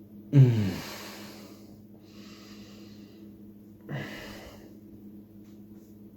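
Two loud snort-like exhalations, each with a short falling voiced grunt: a strong one about half a second in and a weaker one about four seconds in, with breathy sounds between. A steady low hum runs underneath.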